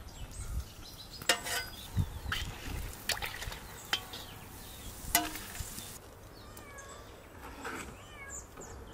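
A metal skimmer clinks sharply against a cast-iron kazan and a metal tray, about six clinks as fried piroshki are lifted out of the oil, over a steady hiss of frying oil. The hiss and clinks stop about six seconds in.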